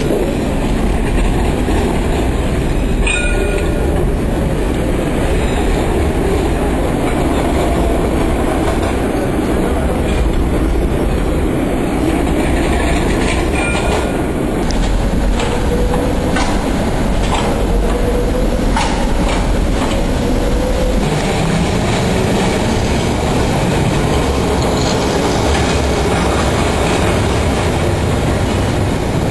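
A rail vehicle, a tram or funicular car, running along its track with a steady rumble. Scattered clicks come from the wheels and track. A faint whine rises and falls a little past the middle.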